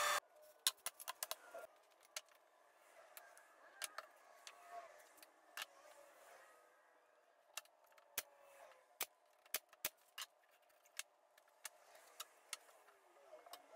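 A loud running machine cuts off abruptly at the very start. Then come irregular light clicks and knocks of plywood drawer parts being handled and fitted together on a workbench.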